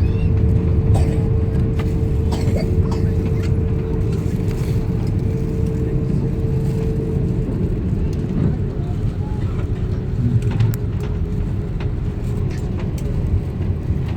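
Airliner cabin noise: a steady low rumble from the engines and airframe, with a steady hum that fades out about halfway through and a few light clicks.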